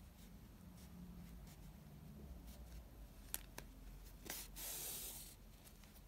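Cotton fabric and thread being handled and rubbed during hand sewing, giving a faint rustle. Two small sharp ticks come about three and a half seconds in, followed about a second later by a longer, louder rustle.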